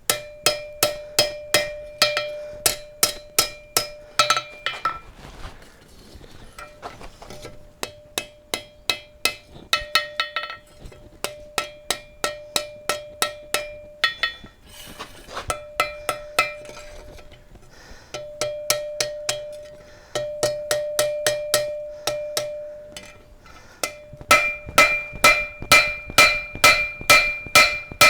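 Ball-peen hammer blows on hot steel over an anvil, about three a second in runs broken by short pauses, each blow leaving a bright ringing anvil tone. This is the drawing out of a small square bar.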